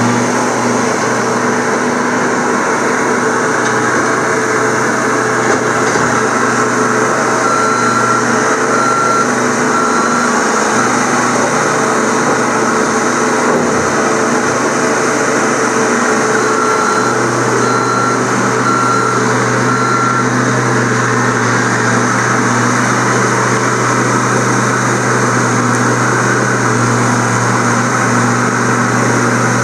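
Skid steer engine running steadily. Twice, about a third of the way in and again past halfway, a run of four short high beeps sounds over it.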